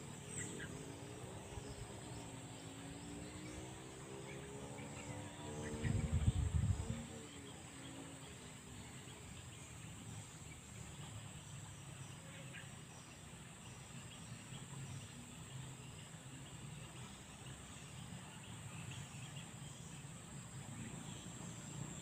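Riverside ambience with a steady, high-pitched insect drone throughout. A faint pitched hum rises and falls in the first few seconds, and a brief low buffet hits the microphone about six seconds in.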